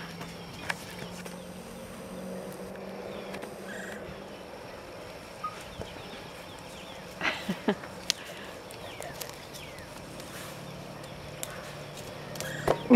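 Quiet outdoor background with a faint steady low hum, broken by a few short soft knocks about seven seconds in and a louder burst of sound near the end.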